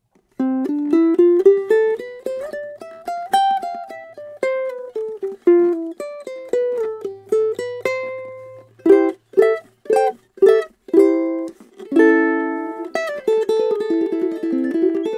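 Solo custom tenor ukulele with a curly Hawaiian koa body, fingerpicked. About half a second in, a single-note melody climbs and then falls. Around the middle come several short, clipped chords with gaps between them, and near the end fuller chords ring out under quick repeated picking.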